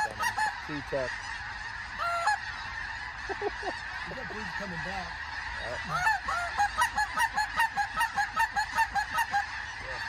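A huge flock of snow geese calling overhead: a constant din of many high-pitched calls, with single nearer calls standing out. From about six seconds in, a run of loud calls comes at about three a second.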